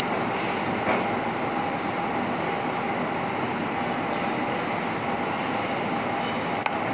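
Steady rushing noise with a faint hum over a charcoal grill in a commercial kitchen, with a light knock about a second in and a sharp click near the end.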